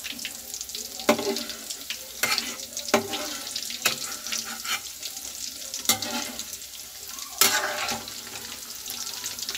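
Potato bread rolls deep-frying in hot oil in a metal kadhai, a steady sizzle. A slotted steel skimmer turns them, knocking against the pan about six times.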